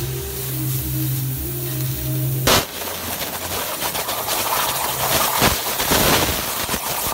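CNC plasma cutter's torch (Hypertherm plasma source): after a low steady hum, the arc fires with a sharp crack about two and a half seconds in. It then runs as a loud, rough hiss that flickers in strength while it cuts.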